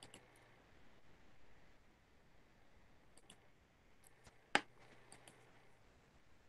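Near silence broken by a few faint ticks and one sharper click about four and a half seconds in, the click of a computer mouse advancing the slide.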